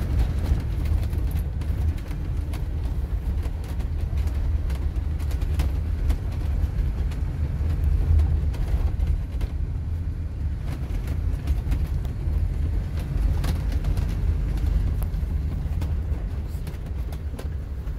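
Tag-axle motorhome driving along a narrow lane, heard from inside the cab: a steady low engine and road rumble, with occasional light clicks.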